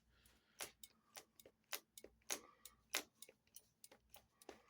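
Faint, irregular clicks, about two to three a second, as the Kawasaki ZRX 1100's brake lever is pumped to build pressure after bleeding the brakes.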